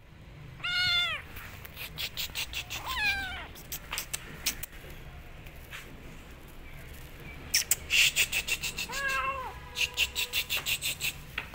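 Kitten meowing three times, short calls that drop in pitch at the end, about half a second, three seconds and nine seconds in. Between them come two runs of quick sharp clicks, about five a second, the louder run near the end.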